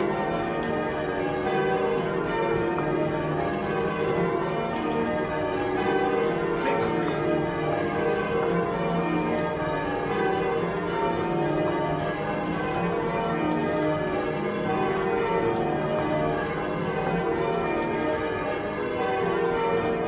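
Bells ringing continuously, many overlapping ringing tones at a steady level.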